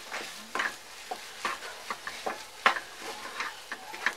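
Spatula stirring and scraping a thick, cooked dal-and-rice mixture around a nonstick kadai, in repeated short strokes about two or three a second.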